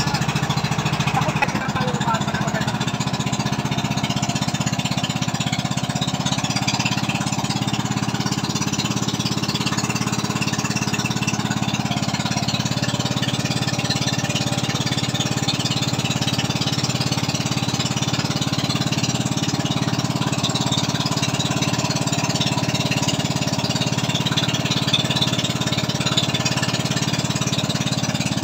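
Outrigger boat's engine running steadily under way, a loud even motor noise with the rush of water and wind over it.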